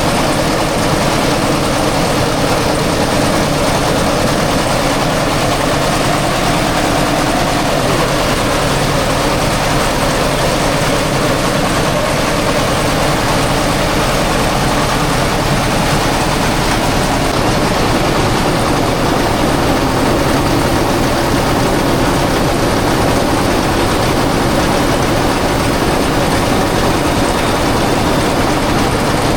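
Engine-driven rice mill running steadily with a dense, unbroken mechanical noise.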